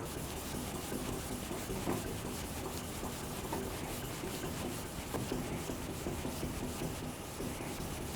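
A kitchen knife blade, a carbon-steel Sakai Takayuki bunka, being stroked back and forth over a wet Suehiro Rika 5000-grit whetstone, a continuous fine scraping of many quick strokes while the edge is polished.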